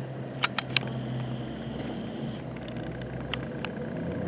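Low, steady vehicle engine rumble from the street, with three sharp clicks about half a second in and two fainter ones later.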